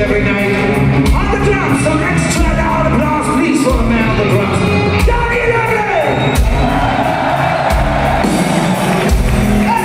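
Power-metal band playing live in a large hall: singing over distorted guitars and drums, with heavy low drum hits landing about every second and a quarter.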